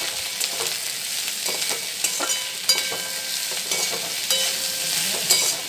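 Chopped vegetables sizzling in a hot metal wok as a metal spatula stirs and tosses them, with irregular clicks and scrapes of spatula on pan over the steady hiss.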